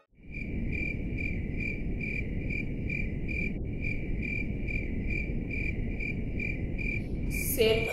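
Crickets chirping steadily, about two to three high chirps a second, over a low rumble.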